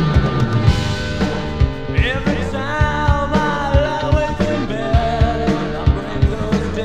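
Rock band recording: drums and bass guitar keeping a steady beat with guitar, and a lead line with bending, wavering pitch coming in about two seconds in.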